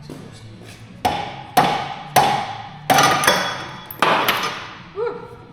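Hammer blows on metal, about eight ringing strikes starting about a second in, driving out a rusty Harley-Davidson Sportster's steering stem and neck bearings.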